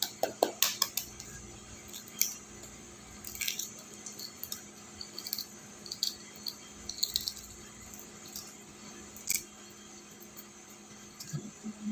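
Hard-boiled chicken egg being peeled by hand: a quick run of sharp shell cracks and taps in the first second, then scattered small crackles and ticks as the shell comes away, over a faint steady hum.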